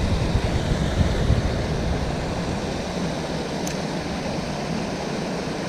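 Steady rush of river water pouring over a small weir at an inflow, with an uneven low rumble in the first couple of seconds that then eases.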